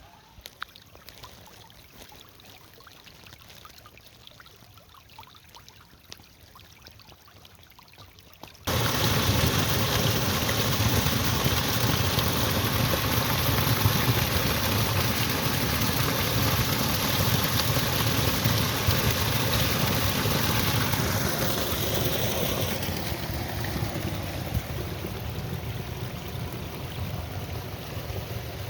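Quiet with a few faint clicks, then about nine seconds in a loud, steady rush of water cuts in abruptly and keeps going, easing slightly near the end.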